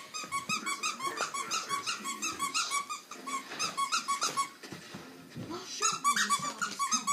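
Squeaky dog toy squeezed over and over in quick succession, several short high squeaks a second, pausing briefly about four and a half seconds in, then starting again.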